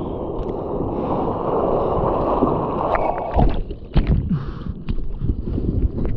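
Ocean surf: a wave rushing in, its noise building for about three seconds, then breaking into choppy splashing and gurgling water with scattered knocks.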